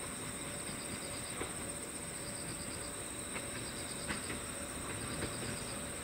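Night insects singing in chorus: one keeps up a steady high-pitched trill while another chirps in rapid runs of pulses, each run about a second long and repeated over and over. A few faint ticks sound now and then.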